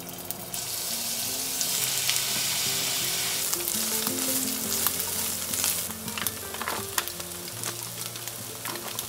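Food sizzling in a frying pan, with scattered sharp clicks. The sizzle rises sharply about half a second in and eases after about six seconds. Soft background music plays underneath.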